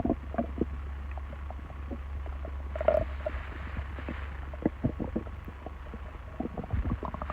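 Human stomach gurgling: scattered short pops and bubbling gurgles, with a louder gurgle about three seconds in, over a steady low hum.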